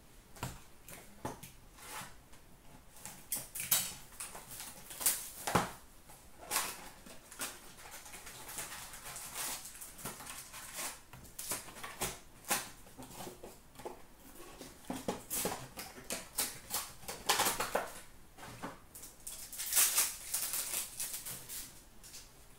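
Hockey card pack wrappers being torn open and crinkled by hand, with cards shuffled and handled: a run of irregular crackling and rustling.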